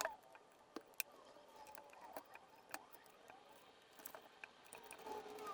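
Faint scattered clicks and rubbing from car interior plastic trim panels being handled and fitted, with a sharper click near the start and another about a second in.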